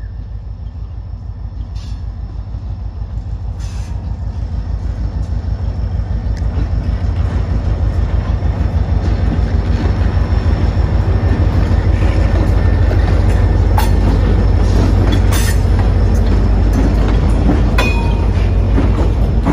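Two diesel-electric freight locomotives approaching and passing close by, their engines a pulsing low rumble that grows steadily louder for about twelve seconds and then holds. A few sharp knocks from the moving train come through, the last one near the end.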